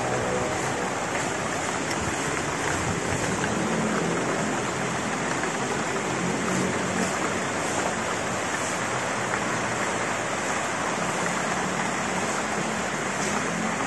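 Steady rushing noise of running water, unbroken and even in level throughout.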